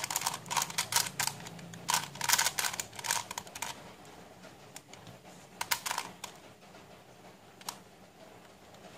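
Plastic face-turning octahedron twisty puzzle being turned by hand: quick runs of plastic clicks and clatter as the faces twist. The turns are busiest in the first few seconds, a few more come about six seconds in, and a single click sounds near the end.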